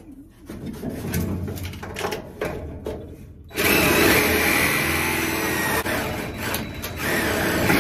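Cordless reciprocating saw cutting through a pipe: a few knocks and rattles as the blade is set against the pipe, then continuous loud sawing from about halfway through, easing off briefly twice.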